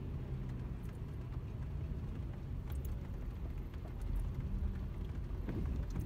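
Truck running, heard from inside the cab as it drives along: a steady low rumble with a few faint ticks.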